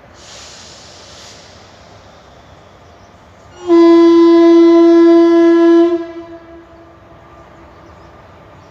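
Indian Railways WAP-4 electric locomotive's horn sounding one long steady blast of about two seconds, starting about three and a half seconds in and dying away with a short echo.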